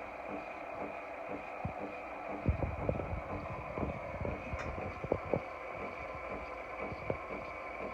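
Nespresso Lattissima Touch pod coffee machine running: a steady buzzing hum with regular low pulses from its pump, and a run of stronger, irregular low thumps around the middle.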